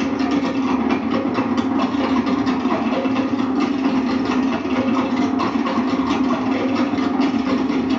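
Tahitian drum ensemble playing fast, unbroken drumming on skin-headed drums: a dense, rapid patter of strokes over a steady low tone.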